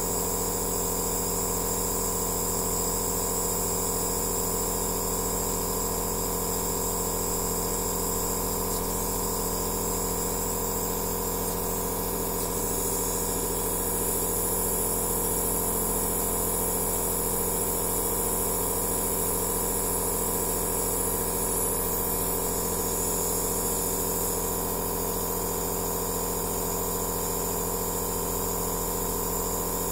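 Aerosol therapy machine (compressor nebulizer) running steadily: an even motor hum under a hiss of air.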